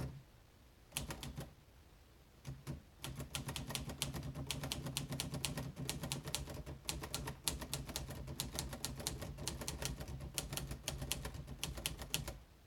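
Olivetti Lettera 22 portable manual typewriter being typed on: a few scattered keystrokes, then from about three seconds in a steady, fast run of typebars striking the platen, several a second.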